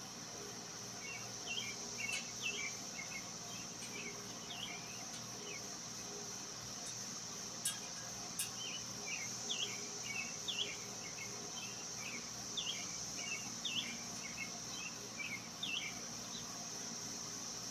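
Steady high-pitched drone of an insect chorus, like crickets, with many short bird chirps over it and two sharp clicks near the middle.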